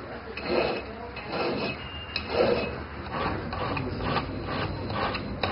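Hand file rasping over a workpiece in slow repeated strokes, roughly one a second, growing busier in the last couple of seconds.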